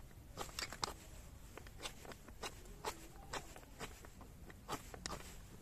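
A flint stone scraped against a metal fire-starter rod in short, irregular strokes, about two a second, striking sparks at tinder in an attempt to light it.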